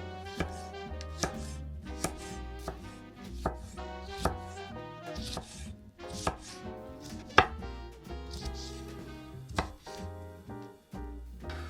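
Kitchen knife chopping on a cutting board, single irregular strikes about one a second, over background music.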